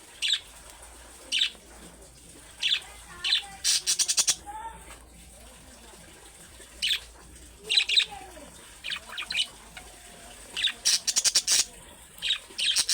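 Budgerigar calls: short, sharp chirps and squawks at irregular intervals, with a quick rattling run of calls about four seconds in and again near the end.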